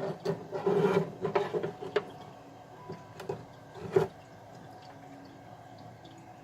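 Plastic parts of a Smartmi Evaporative Humidifier 2 being handled and fitted: rubbing and scraping with small clicks for the first couple of seconds, then two sharp knocks a second or so apart, then quieter.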